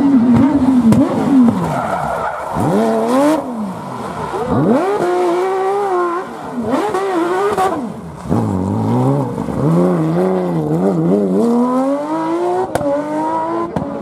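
Porsche 911 GT3 rally car's flat-six engine revving hard, its pitch climbing and dropping repeatedly through gear changes and lifts, with tyre squeal as the car slides through a tarmac corner.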